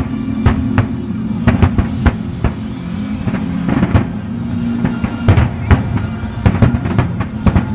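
Fireworks shells bursting in an irregular run of sharp bangs, sometimes several a second.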